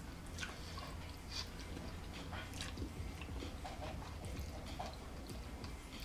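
Close-up eating sounds of kimchi ramen noodles being slurped and chewed: small wet mouth clicks and smacks scattered throughout, over a faint low hum.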